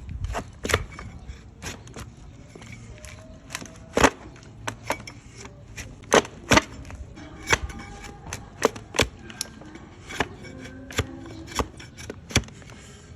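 Hoof-trimming tools cutting into a donkey's overgrown hoof horn: irregular sharp cracks and clicks, about one a second, the loudest about four and six seconds in.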